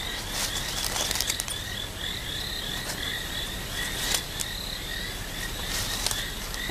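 Night-time bush ambience: a small creature chirping in a steady rhythm, about three chirps a second, over a soft hiss, with a few brief clicks.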